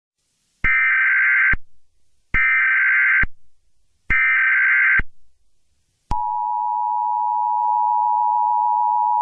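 Emergency Alert System tones: three short bursts of SAME header data noise, each just under a second long and evenly spaced, then about six seconds in the steady two-tone EAS attention signal starts and holds.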